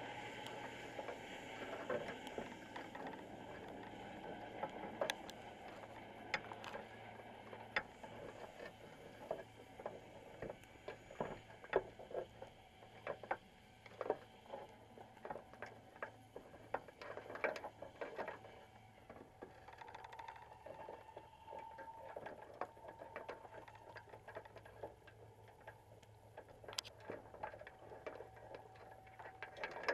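Underwater sound from inside a wire crab pot: many irregular clicks and taps, as crabs' shells and legs knock against the wire mesh and bait box, over a faint low steady hum.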